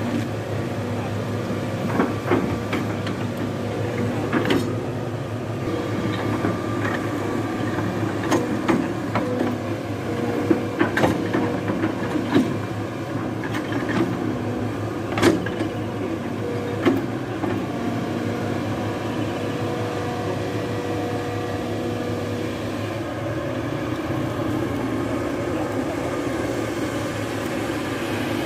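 Hitachi ZX-210 long-arm excavator's diesel engine running steadily under hydraulic work, with a scatter of sharp knocks and clanks as the bucket handles coconut trunks, mostly in the first half.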